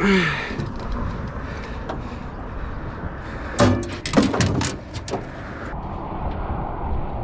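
Several clunks and rattles of gear knocking against a small aluminium boat, bunched together about three and a half to five seconds in, over a steady background of wind and water.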